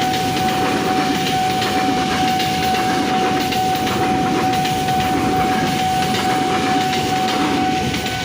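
A train passing close by: a steady rumble of wheels on rail with a constant high whine, dropping away at the end.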